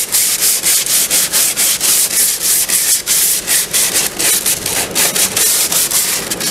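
Sandpaper on a hand sanding block rubbed quickly back and forth over cured epoxy on the wooden hull, about three or four strokes a second, scuffing the glossy epoxy dull so primer will stick.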